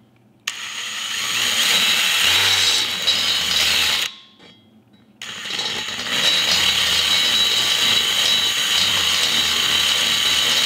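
Carbide milling burr spinning in a high-speed rotary tool, grinding cast aluminium around the oil galleries of a cylinder head. It runs in two passes with a steady whine: one of about three and a half seconds starting about half a second in, then, after a pause of about a second, a longer pass of about five and a half seconds.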